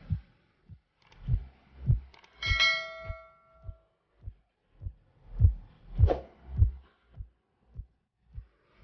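Background music track with a soft, steady low beat of about two thumps a second, and a single bell-like ding about two and a half seconds in, the notification chime of a subscribe-button animation.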